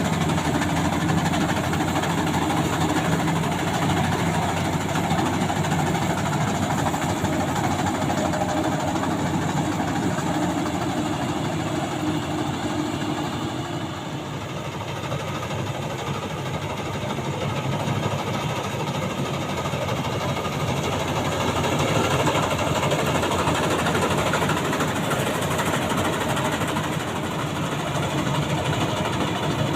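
Maxxi Bimo 102 rice combine harvester running steadily. It grows a little quieter about halfway through, then builds back up.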